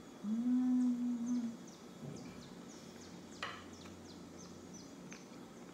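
A woman's closed-mouth "mmm" of enjoyment as she tastes a bite of sweet bread: one steady hum held for about a second. After it come faint small clicks and one light knock about three and a half seconds in.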